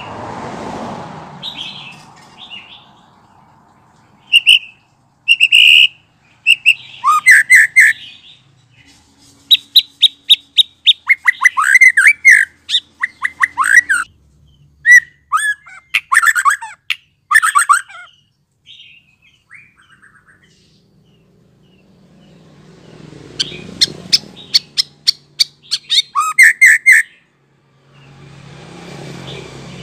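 A young white-rumped shama singing in loose phrases of short chirps and whistled notes, including fast runs of down-slurred notes. It is just out of its spotted juvenile plumage. A soft rushing noise rises under the song near the start, partway through, and near the end.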